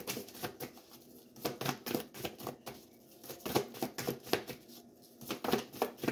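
A deck of tarot cards being shuffled by hand in an overhand shuffle: quick runs of crisp card clicks with short pauses between runs.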